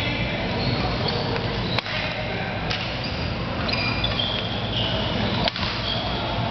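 Sports shoes squeaking on a wooden badminton court floor during a doubles rally: many short, high squeaks over a steady hum of hall noise.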